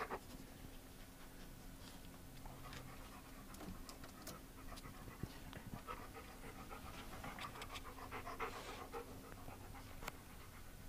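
A dog panting close to the microphone, a steady run of quick breaths.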